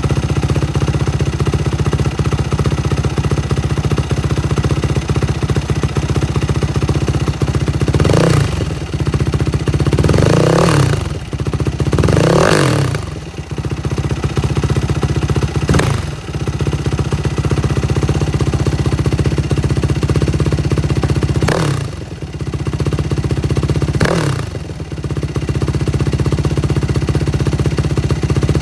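Yamaha WR450F's single-cylinder four-stroke engine idling steadily through a Muzzy exhaust with a titanium headpipe and the spark arrestor screen in, blipped about six times. Each blip rises quickly in pitch and falls back to idle.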